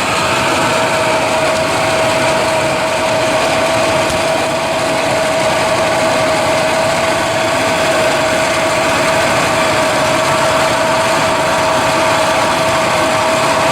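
A machine running steadily, a constant noise with one unchanging whine through it.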